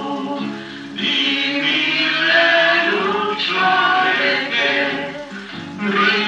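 Film soundtrack music played from a 16mm print, a melody over held chords.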